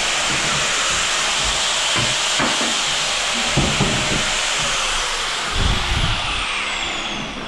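Angle grinder cutting into hard ceramic tile: a steady high whine over harsh grinding hiss. About five seconds in it is switched off and the whine falls steadily as the disc spins down.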